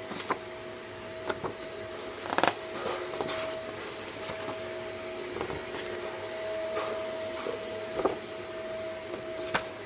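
A steady mechanical hum with a constant whine, apologised for as background noise, with a few sharp clicks and knocks of items being handled.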